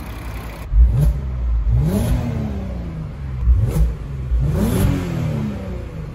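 Volkswagen Golf R32's 3.2-litre VR6 engine revved in short blips while stationary, its pitch climbing and falling back about four times over a steady idle. It runs clean with no timing chain rattle.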